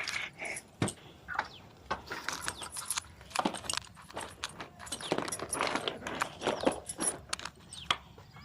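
Close-miked eating of a chicken leg piece: irregular crunching and clicking from biting and chewing, busier around the middle.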